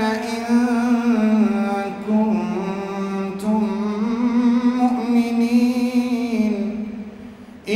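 A man chanting Quran recitation in a slow, melodic, drawn-out phrase, the melody bending through long held notes. It fades out near the end.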